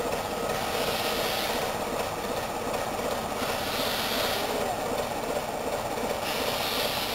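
Steam locomotive moving slowly, its steam hissing in three long swells about three seconds apart, over a steady engine-like rumble from the idling diesel locomotive standing alongside.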